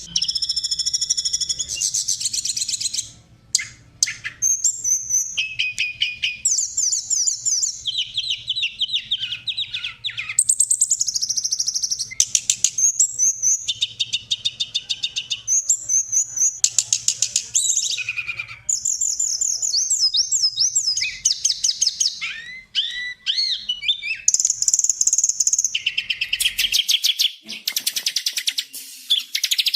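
Recorded songbird song: fast trills, repeated chirping phrases and warbling runs, high-pitched and loud, changing pattern every second or two. A faint low hum under the song stops a few seconds before the end.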